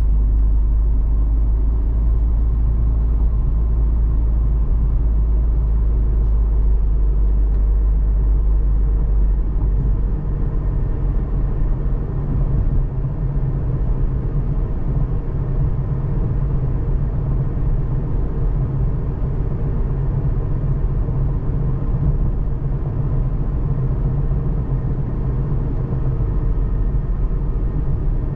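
Steady low rumble of a car driving. About ten seconds in, the deepest rumble eases and a slightly higher hum takes over.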